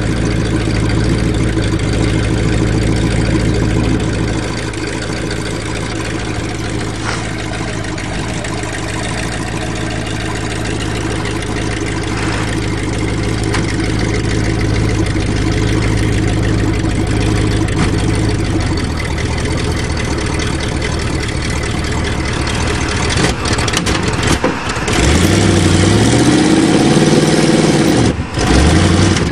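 GMC 400 4x4 truck's engine idling steadily, then revved hard in several rising sweeps over the last few seconds as its rear wheels spin in the dirt.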